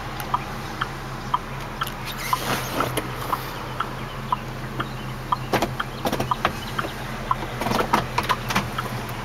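Hazard flasher ticking evenly about twice a second in the cab of a 2005 GMC Canyon, over the steady low hum of its idling Vortec 3500 inline-five. A few sharper clicks break in now and then.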